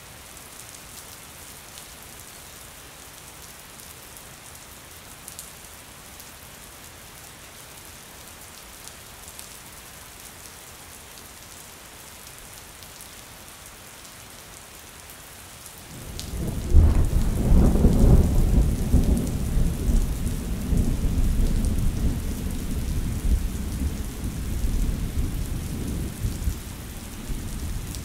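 Steady rain falling, then about halfway through a loud, deep roll of thunder breaks in and rumbles on, slowly fading over the last ten seconds while the rain continues.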